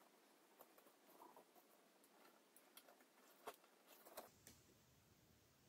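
Near silence, with faint scattered clicks and rustles of fingers handling a small copper-wire-wound transformer coil. The sharpest click comes about three and a half seconds in.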